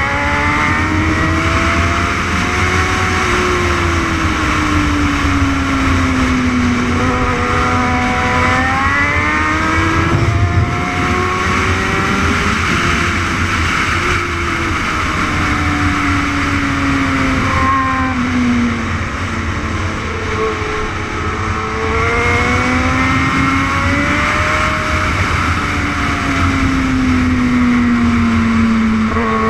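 A 600cc sport bike engine at racing pace, heard from an onboard camera. Its pitch climbs under hard acceleration and falls off repeatedly under braking and gear changes through the corners, with constant wind rush over the bike.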